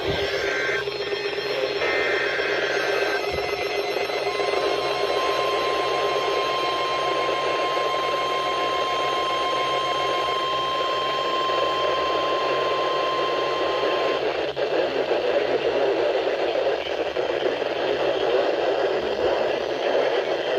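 NOAA Weather Radio weekly test received through heavy radio static: a few seconds of short warbling data bursts, then the steady 1050 Hz warning alarm tone held for about ten seconds before it cuts off, with the static continuing after.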